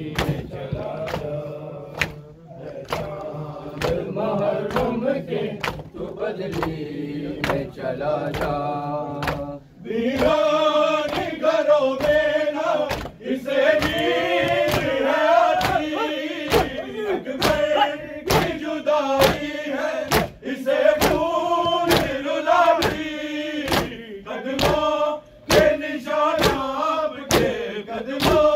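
A group of men chanting a nauha, a Muharram lament, in unison over a steady beat of hands striking chests in matam, about three slaps every two seconds. The chanting grows louder and fuller about ten seconds in.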